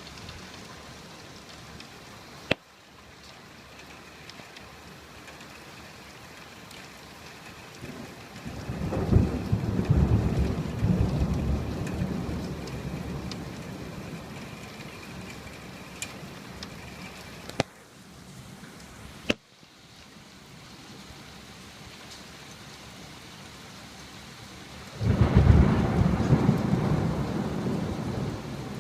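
Steady rain with two rolls of thunder, one about eight seconds in and another near the end. Three sharp clicks, the middle two close together, interrupt the rain hiss.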